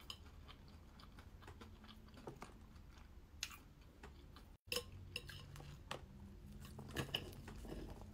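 Knife and fork clinking and scraping on a plate as toast is cut, in a few scattered sharp clicks, with faint chewing in between.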